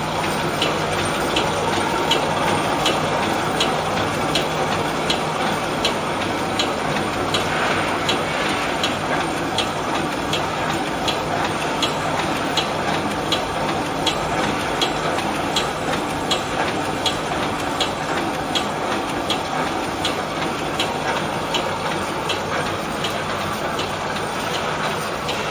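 Automatic welded wire mesh machine running, with a steady motor hum under a regular clacking of the welding strokes, about two a second.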